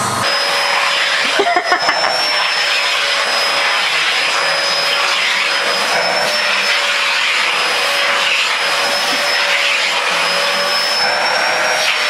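Vacuum cleaner running steadily: the rush of air with a steady high whine over it. A few brief knocks come about a second and a half in.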